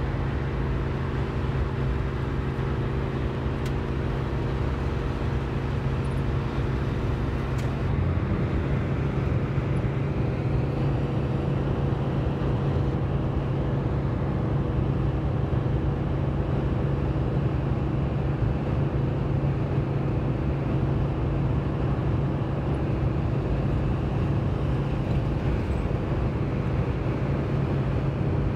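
Steady sound of a car driving: a low engine hum under tyre and road noise, with the hum changing about eight seconds in.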